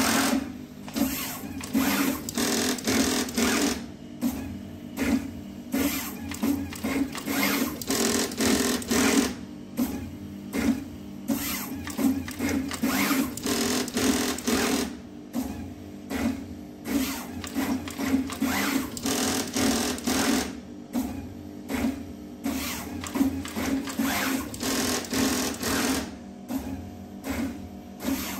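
Pick-and-place machine running as it populates circuit boards: the placement head makes quick whirring moves with clicks and knocks coming irregularly, about one or two a second, over a steady hum.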